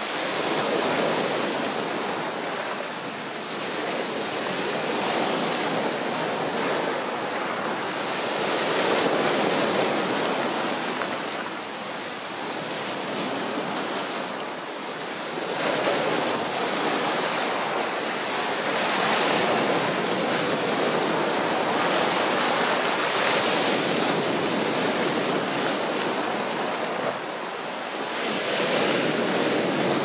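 Sea waves breaking on a shore of rocks and pebbles, the surf crashing and washing over the stones. The sound rises and falls in surges every few seconds.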